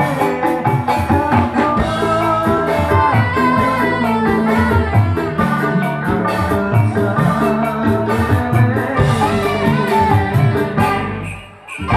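A live band playing amplified music with a drum kit and electric guitar. The sound drops away for a moment near the end, then the music picks up again.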